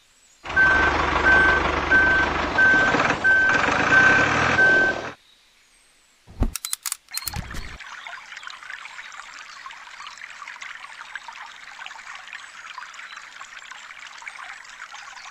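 A truck engine rumbling with a reversing beeper pulsing about twice a second, for about four and a half seconds. After a pause and two short clicks, a steady trickle of water runs from the miniature tanker's outlet pipe onto sand.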